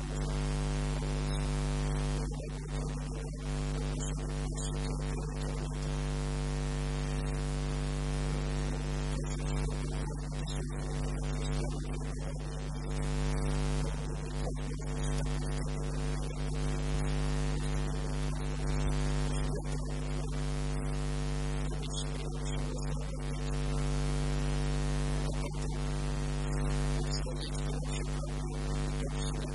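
Steady electrical mains hum with a stack of even overtones, running under a man talking.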